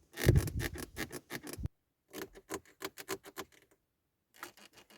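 Volkswagen Golf 7 interior plastic trim creaking and crackling as it is pressed hard by hand, in three bursts of quick irregular creaks with short pauses between.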